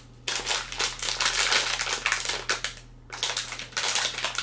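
Clear plastic packaging bag crinkling and rustling as a small part is unwrapped by hand, in two spells with a short pause about three seconds in.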